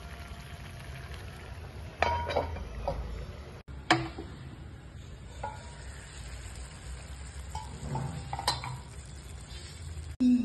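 Potato curry simmering and sizzling in a pan, with a spoon clinking and knocking against the pan a few times, loudest about 4 s and 8.5 s in.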